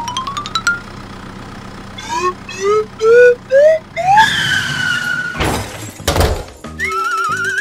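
Cartoon sound effects: a row of short rising chirps stepping up in pitch, then a falling whistle, a brief whoosh about six seconds in, and a warbling tone over a pulsing beat near the end.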